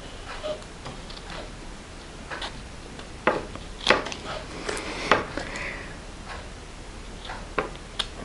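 Scissors snipping around the edge of a paper cutout: a string of irregular snips, clustered in the middle and a couple more near the end.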